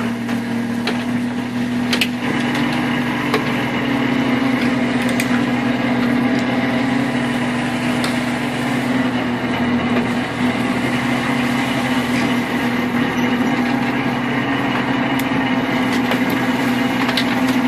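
Crab-fishing boat's motor running steadily with a constant hum, with a few light knocks and clicks over it.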